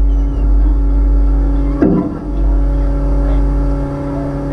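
Demolition derby car's 355 V8 engine idling steadily through open headers, with a low rumble. A single sharp thump sounds about two seconds in.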